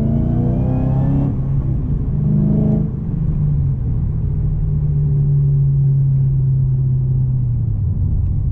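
Supercharged LSA V8 of an HSV VF Commodore accelerating hard, the engine note and supercharger whine rising in pitch. It shifts about a second in, makes a short second pull, then settles to a steady cruise from about three seconds in.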